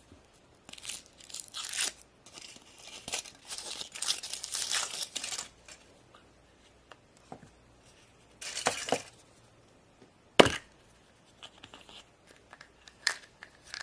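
Foil wrapper of a Kinder Surprise chocolate egg being torn and crinkled off in several bursts. About ten seconds in there is one sharp snap as the egg is broken open, followed by light clicks from handling the plastic toy capsule.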